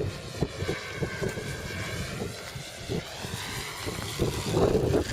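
Radio-controlled model Pilatus PC-9's motor and propeller whining faintly, the pitch bending slowly as the plane flies by on its landing approach. Gusty crosswind buffets the microphone with low thumps and rumbles.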